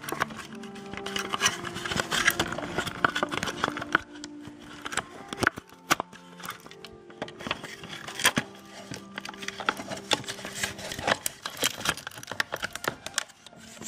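Background music with sustained notes that change every second or two, under frequent sharp clicks and scrapes of hands handling parts.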